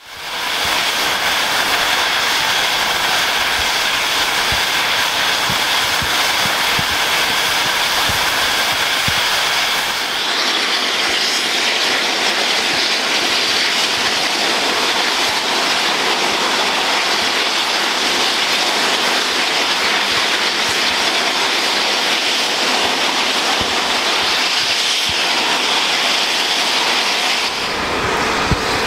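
Steam locomotive 34053 'Sir Keith Park', a Bulleid Battle of Britain class 4-6-2, hissing steam steadily and loudly. A low rumble underneath drops away about ten seconds in.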